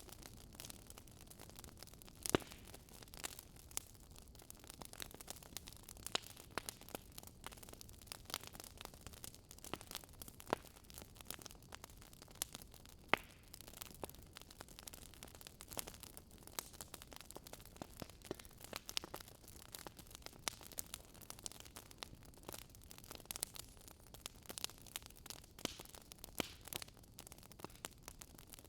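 Fireplace fire crackling: irregular sharp pops and snaps over a faint steady hiss, with a louder pop about two seconds in and another near the middle.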